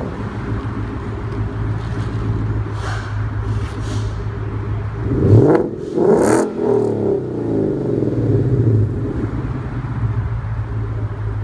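2015 Mustang GT's 5.0 V8 idling through a freshly fitted Ford Racing X-pipe and dual Magnaflow Magnapack mufflers, then revved twice in quick succession about halfway through, the revs dropping back to idle.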